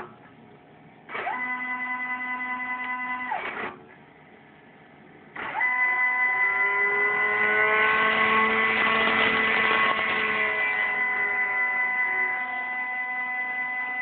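Stepper motors driven by a Gecko G540 stepper driver whining at a pitch set by their step rate as they make jog moves: one short move, a pause, then a longer move that starts about five seconds in, its pitch bending up and down partway through.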